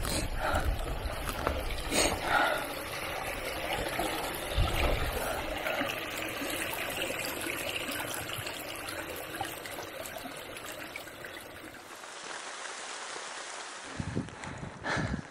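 Small forest brook trickling and splashing over stones and moss: a steady rush of running water, with a few low bumps in the first seconds. About twelve seconds in it gives way to a thinner hiss.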